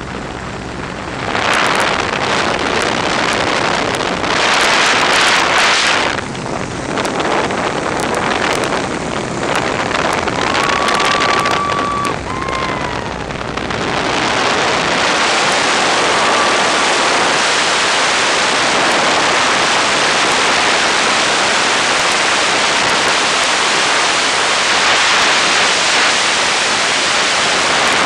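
Wind rushing over the microphone in the open cockpit of a 1942 Boeing Stearman biplane in aerobatic flight, with the engine running underneath. The rush swells and falls in the first half and holds loud and steady from about halfway through. A thin high whistle sounds briefly a few times.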